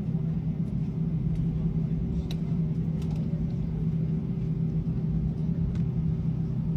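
Airbus A321 cabin noise: a steady low rumble with a constant hum, with a few faint clicks scattered through it.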